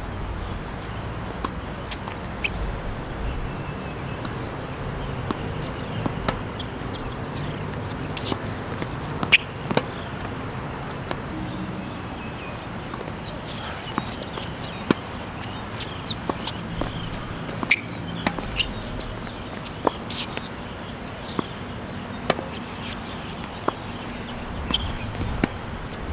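Tennis rally on a hard court: sharp pops of rackets striking the ball and the ball bouncing, coming at irregular intervals over steady low background noise.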